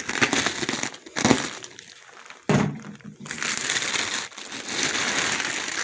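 Plastic bags and packing liner in a shipping box crinkling and rustling as they are handled and pushed aside, in several loud spells with short pauses.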